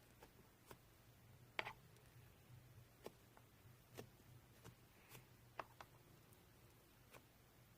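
Faint, scattered little clicks and pops of mixed slime being pressed and stretched by hand, over a low steady hum.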